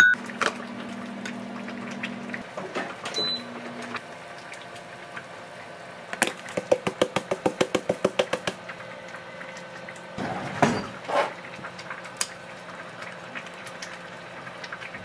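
Kitchen handling sounds. First a plastic rice paddle clicks against a ceramic bowl while rice is scooped. Around the middle a herb seasoning shaker is shaken hard, about six quick shakes a second for two seconds, followed by a few soft knocks.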